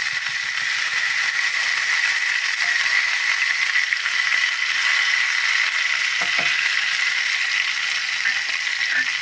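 Freshly washed curry leaves, coriander and mint frying with slit green chillies in hot coconut oil and ghee, sizzling steadily.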